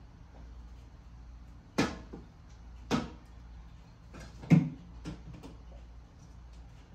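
Kitchen clatter while food is being reheated: three sharp knocks about a second apart, the loudest about four and a half seconds in, then two lighter taps, over a steady low hum.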